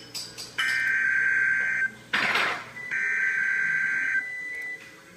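NOAA Weather Radio Emergency Alert System (SAME) header: harsh, buzzy digital data bursts, two of them about a second long each and a second apart, with a short crackle of static between them. This is the coded header that announces a severe thunderstorm warning.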